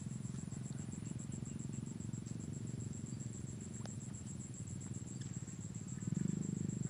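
A cricket-like insect trilling steadily in high, rapid, even pulses, over a steady low hum that gets louder near the end.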